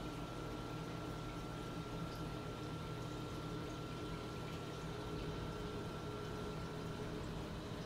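Steady running noise of a saltwater reef aquarium's circulation system: water moving through the tank and its sump plumbing over a low, even pump hum. A faint steady high whine fades out about seven seconds in.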